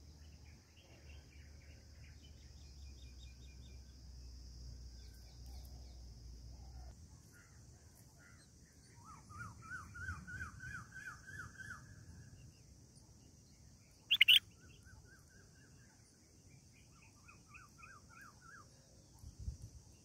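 Red-whiskered bulbul nestlings begging at the nest: rapid trains of short rising chirps, several a second, in bursts of a few seconds, the loudest about halfway in and another near the end. A single sudden sharp, loud note stands out about two-thirds of the way in, over a steady high hiss.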